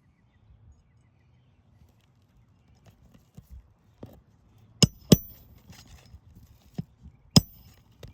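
Hammer driving roofing nails into asphalt shingles: a few light taps, then two sharp ringing strikes in quick succession about five seconds in and one more about two seconds later.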